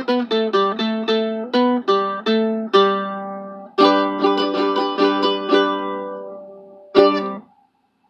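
Oscar Schmidt OU28TE 8-string ukulele playing a melody note by note, its paired strings giving the bright, doubled ring of a twelve-string. Near the middle a chord is left ringing and slowly fades, then one final strum near the end is quickly damped.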